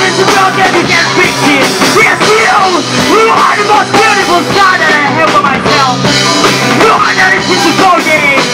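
Melodic hardcore band playing live at full volume: distorted electric guitars, bass and drum kit.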